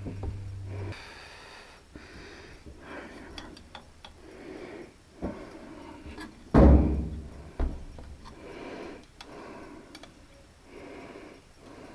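Close breathing, with a few knocks and one loud thunk about six and a half seconds in, as parts of a central air unit are handled and fitted together.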